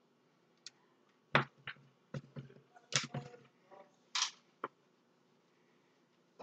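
Light, irregular taps and clicks of a kitchen knife tip striking the baking sheet through parchment paper as slits are cut into raw calzone dough, with a couple of brief rustles. About ten of them, scattered over the first four and a half seconds.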